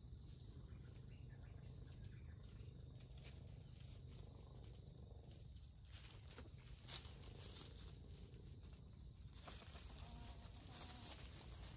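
Near silence with faint rustling of dry leaf litter as a red junglefowl rooster scratches and forages, strongest around six to seven seconds in and again near the end.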